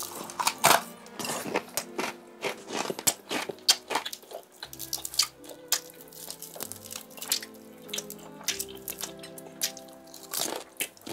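Crispy fried chicken crust crunching and crackling as it is bitten, chewed and pulled apart, in many sharp crisp snaps, loudest about half a second in, over soft background music.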